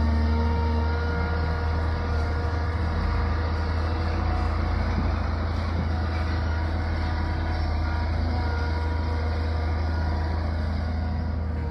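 Heavy machinery engine running steadily with a deep, constant drone.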